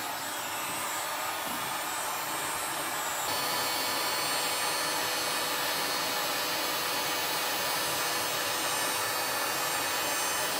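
Electric heat gun switched on and running, a steady fan whoosh with a faint hum, blowing hot air onto a hose stuck on a corroded jet pump fitting to loosen it.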